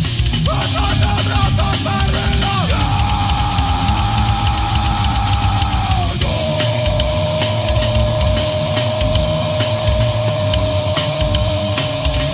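Death crust metal band playing: dense drum-kit hits under distorted guitars, with a long held high note that steps down in pitch about six seconds in and holds until near the end.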